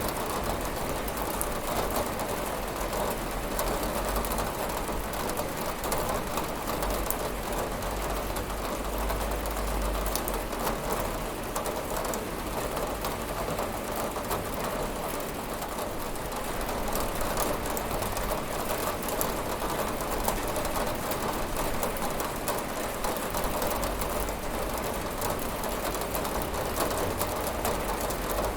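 Steady rain falling on a window, an even patter with a low rumble underneath.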